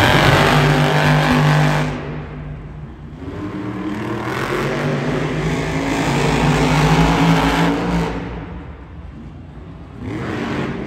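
Monster truck's supercharged V8 engine revving hard, easing off about two seconds in, building back up to full throttle, then easing off again and picking up once more near the end.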